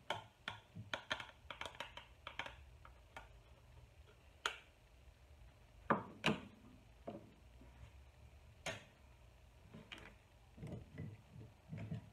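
Metal spoon clinking against a canning funnel and glass pint jar as chicken pieces are spooned in, then pressed down with a plastic tool: a scatter of sharp clicks and light knocks, quick at first, then single louder ones a few seconds apart and softer taps near the end.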